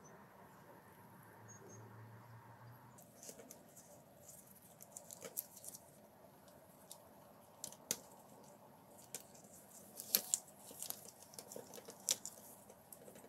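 Faint handling noise: gloved hands rustling against the opened plastic housing of a DeWalt drill and its wires, with scattered small clicks and taps of plastic. The strongest clicks come near the end. A faint steady hum stops about three seconds in.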